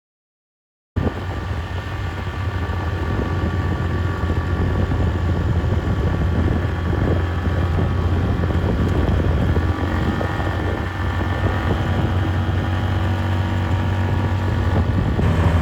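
A four-wheeler's (ATV's) engine running steadily with a deep low hum, starting suddenly about a second in.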